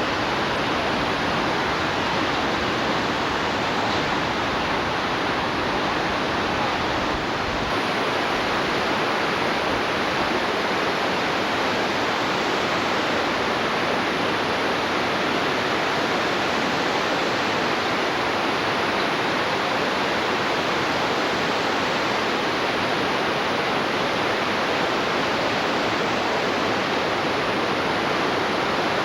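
Water rushing steadily, a dense even hiss; the low end thins slightly about eight seconds in.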